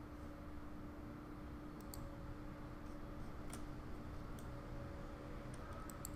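Several faint computer mouse clicks scattered through, over a steady low hum.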